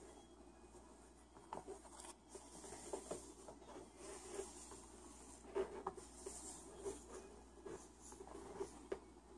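Faint rustling and soft irregular scratchy touches of a hand stroking a cockatoo's feathers against cloth.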